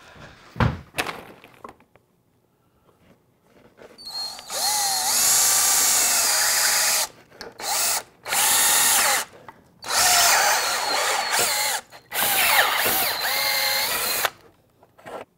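Power drill with a twist bit drilling into a clear plastic tube, in four runs of about two seconds each with short pauses between, starting about four seconds in.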